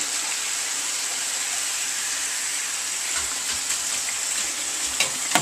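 Hot cooking oil sizzling in a deep-frying pan: a steady, even crackling hiss.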